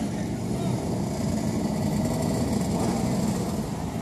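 Several motoball motorcycles running together, their engines revving as the riders pull away across the dirt pitch.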